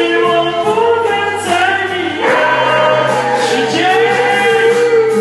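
A dog howling along to loud karaoke music: long, wavering howls that bend in pitch, over a backing track with a steady bass.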